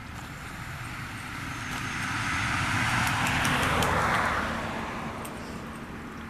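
A car driving past: its noise swells to a peak about three to four seconds in, then fades away.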